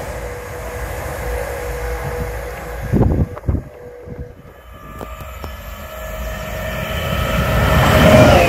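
Stadler FLIRT multiple-unit train approaching on an electrified main line, its rumble and rail noise swelling over the last few seconds as it comes up close. A few loud thumps about three seconds in.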